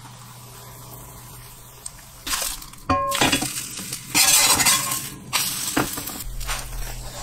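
Kohlrabi pancake frying in oil in a pan: faint at first, then loud sizzling in surges from about two seconds in. A metal spatula clinks against the pan, with a short ring, about three seconds in.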